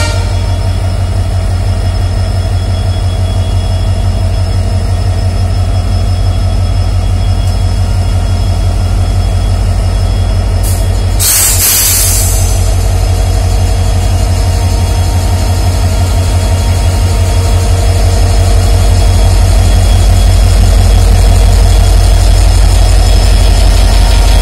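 Indian Railways diesel locomotive engine running with a loud, deep, pulsing throb. A short burst of hiss comes about halfway through, and the engine gets louder over the last few seconds.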